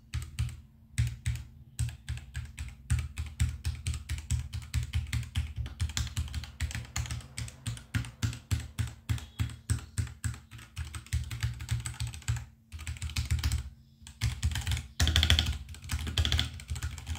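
Typing on a Royal Kludge RK84 V2 mechanical keyboard with Gateron switches: a fast, steady run of key presses that pauses briefly twice near the end, then picks up in a quicker flurry. The keystrokes are fairly quiet, not clicky.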